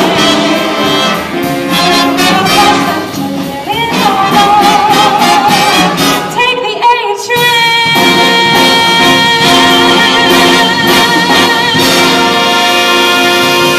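Jazz big band of saxophones, trumpets and trombones with a female vocalist, playing the closing bars of a swing tune. About seven seconds in, singer and band land on a long final chord, held with vibrato in the voice.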